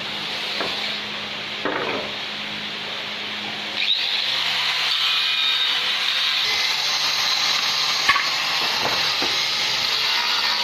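A power tool working wood, running steadily; it gets louder with a higher, steady whine from about four seconds in, with a few light knocks.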